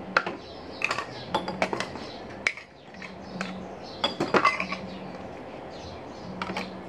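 A spoon clinking and tapping against a bowl as seasoning is spooned in, in a few scattered clinks with a quick cluster about four seconds in.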